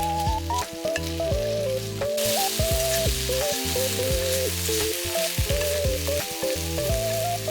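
Food sizzling and frying in a hot pan under background music with a stepping melody and bass notes. The sizzle grows louder about two seconds in.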